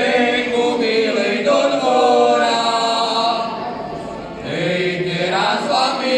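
A group of men singing a folk song together in long held notes, with a short break about four seconds in.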